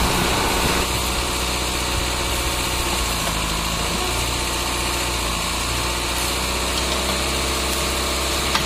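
Engine of a wheeled spider backhoe excavator running steadily as the machine works its digging arm.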